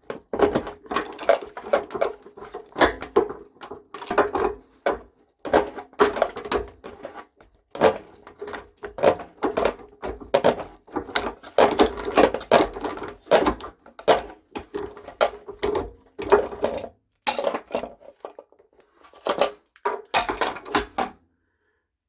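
Hand tools (pipe wrench or pliers) clanking and scraping irregularly against the anode rod fitting on top of a metal electric water heater tank, with a faint metallic ring under many of the knocks; it stops about a second before the end.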